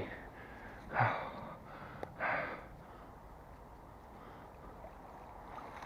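Two short, breathy gasps from a man straining to haul up a heavy magnet-fishing catch, about a second apart, with a light click just before the second.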